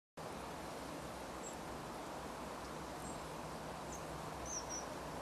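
Steady outdoor background hiss, with a few faint, brief high chirps of distant small birds scattered through it, two close together near the end.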